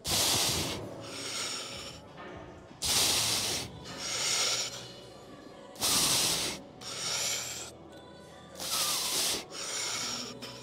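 A man breathing hard through a set of heavy one-arm dumbbell preacher curls: each rep brings a sharp, loud breath and then a softer one, four times about three seconds apart.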